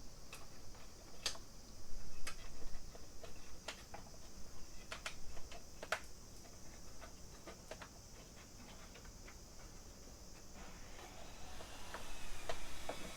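Irregular light clicks and taps of hands working a washer hose and plastic parts into place on the van's cowl, over a steady faint hiss; the taps thin out after about seven seconds.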